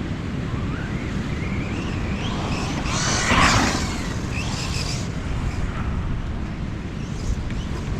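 Wind buffeting the microphone, over the faint rising and falling whine of a Losi Tenacity DB Pro RC truck's brushless electric motor as it is driven and revved. About three seconds in there is a louder rush of noise.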